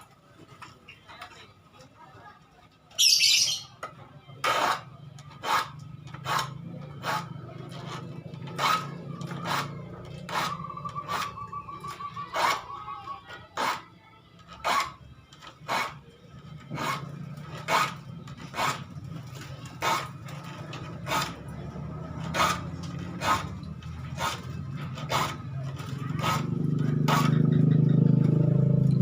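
Hand file rasping across handsaw teeth in short, regular strokes, about one stroke every three-quarters of a second, as a blunt saw is sharpened. A bird chirps once about three seconds in, and a low hum swells near the end.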